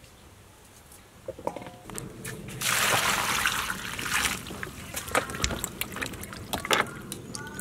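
Water sloshing and splashing in a stainless steel bowl as round green eggplants are washed by hand, with a louder stretch of splashing for about two seconds near the middle and scattered clicks and knocks throughout.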